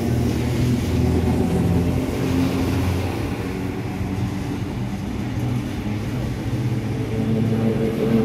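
Vintage 'Red Rattler' electric train, set F1, running past close by: a steady low hum of its motors and wheels on the rails.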